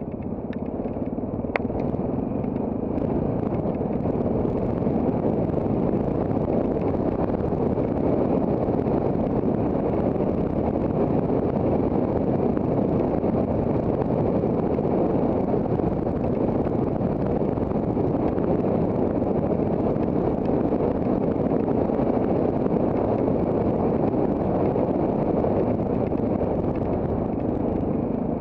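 Off-road trail motorcycle being ridden, its engine running under way with wind rushing over the action camera's microphone; the noise builds over the first few seconds, then holds steady.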